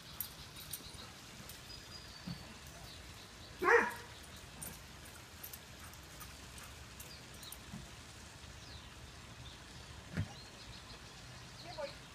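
A Vizsla barks once, a single short bark about a third of the way in, with a short knock-like sound a little before the end.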